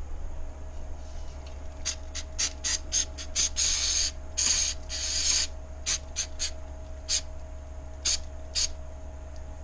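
Aerosol brake cleaner sprayed in a quick run of short spurts, then three longer sprays, then a few more short spurts, flushing aluminium filings and dirt out of a gearbox housing.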